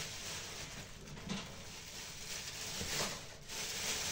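Wooden spoon stirring white beans and lardons in an enamelled casserole: soft, uneven scraping and shuffling in a few swells.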